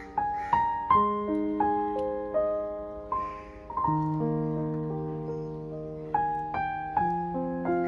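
Solo piano background music, notes struck one after another and left to ring out.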